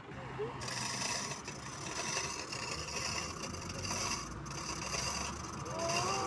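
Steady rasping, scraping noise of tow-truck rigging being worked, over a low steady engine hum.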